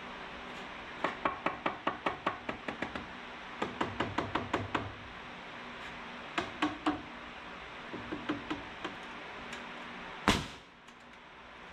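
A hammer tapping a wooden stud into place in quick runs of light knocks, then a pneumatic nailer firing into the framing lumber: a sharp bang with a short hiss about ten seconds in, and another at the end.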